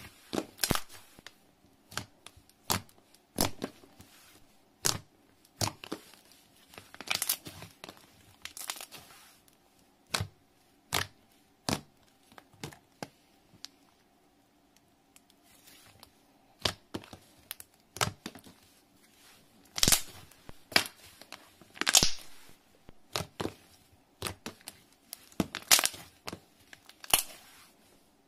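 Thick white matte slime, white slime mixed with a dish-soap and cornstarch clay, being pressed, squeezed and stretched by hand. It gives irregular sharp crackles, pops and tearing sounds, in quick clusters with short pauses between.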